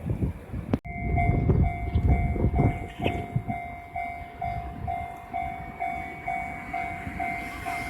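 Japanese level-crossing warning bell switching on with a click about a second in, then sounding an electronic ding that repeats about two and a half times a second, the signal that a train is approaching. A low rumble runs underneath.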